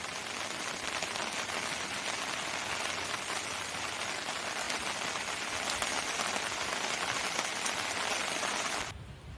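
Meat sizzling on a hot grill or pan over a campfire: a steady, dense sizzle full of fine crackles that cuts off suddenly near the end.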